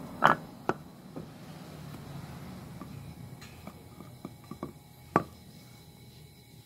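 Blocks of pale moon ebony wood knocking as they are handled and set down on wet concrete: two sharp knocks near the start, a strong one about five seconds in, and lighter taps between.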